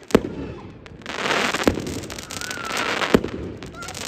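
Fireworks going off: a sharp bang just after the start and another about three seconds in, with dense crackling from the bursts in between.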